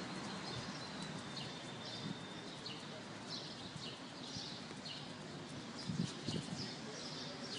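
Birds chirping repeatedly in short, irregular calls, with a thin high tone held through the first second or so and a few soft thumps about six seconds in.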